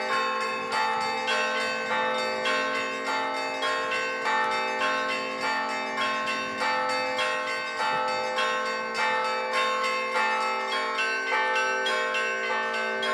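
Russian Orthodox church bells being rung together in a steady rhythm, about two strikes a second. Several bells of different pitches ring on over one another, with a deep bell's tone sounding throughout.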